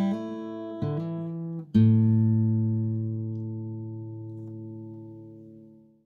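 Outro music: a guitar strummed in three chords, the last, about two seconds in, left ringing and slowly fading out.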